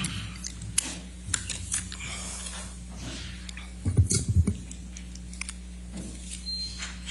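People standing up and shifting at courtroom tables: scattered clicks, rustles and chair and table knocks, with a cluster of heavy low thumps about four seconds in, over a steady low electrical hum.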